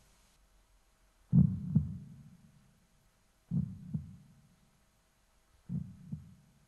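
Heartbeat sound effect: three slow, low double beats about two seconds apart, each fainter than the one before.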